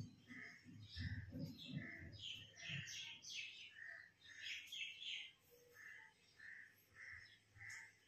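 Faint bird calls: one bird repeats a short note about every two-thirds of a second, with a few higher chirps in the middle. A low rumble fills the first few seconds.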